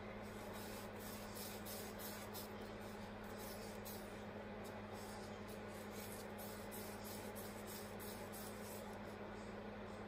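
Soft, irregular rubbing and rustling of yarn as it is wound around the fingers for a pom-pom, over a steady low hum.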